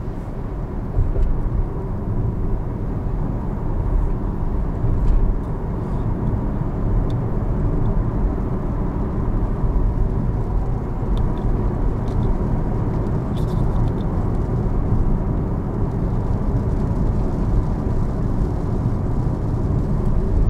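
Porsche Taycan Turbo S electric car driving on a wet road: steady tyre and wind noise with a low rumble and no engine sound, and a few faint clicks around the middle.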